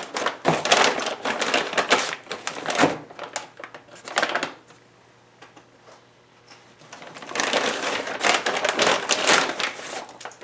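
Clear plastic bag crinkling and rustling in bursts as a new wiring harness is unwrapped and pulled out of it, with a quiet pause in the middle.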